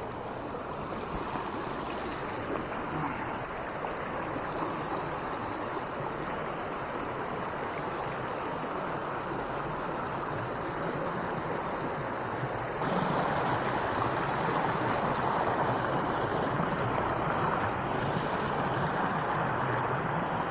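River water rushing steadily, the river running high with spring rain; the rush gets louder about two-thirds of the way through.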